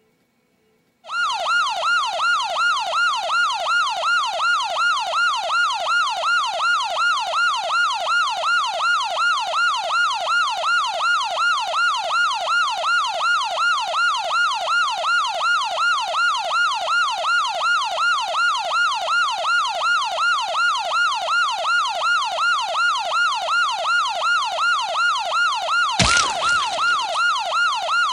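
A siren whooping: after a second of silence, a rapid rising sweep repeats about two to three times a second without a break. A sudden loud bang cuts across it near the end.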